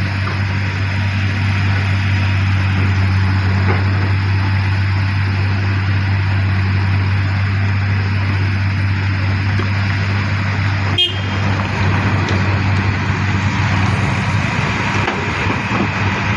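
Large diesel engine running steadily with an unchanging low hum. There is a single sharp click about eleven seconds in.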